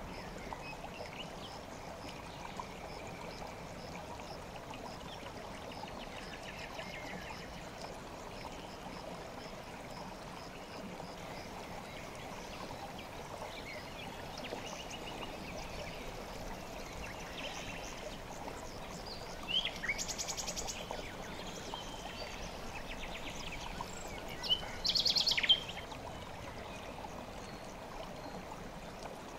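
River water flowing steadily, with small birds chirping over it. Two louder, fast-pulsed bird trills stand out, about twenty and twenty-five seconds in.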